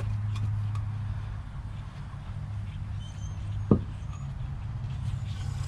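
One dull, muffled sledgehammer blow about two thirds of the way in, struck through a wood block and rag against a truck rim to break loose a tire stuck on the hub. A steady low hum runs underneath.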